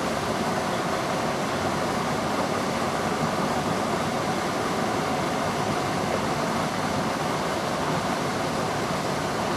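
Steady rushing of water pouring over a spillway, an even noise with no breaks.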